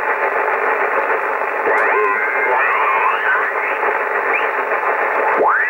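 Yaesu FT-840 transceiver's speaker hissing with 11-metre upper-sideband band noise while the dial is tuned down the band; mistuned sideband voices and whistles slide up and down in pitch as stations are passed, with a big swooping sweep near the end.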